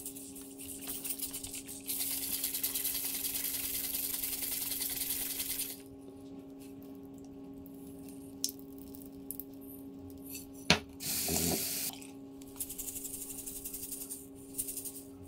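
Water pouring from an old glass soda bottle into a bathroom sink, with BBs rattling and clinking inside the glass as it is tipped. The loudest pour runs for a few seconds early on, and there is one sharp clink about eleven seconds in.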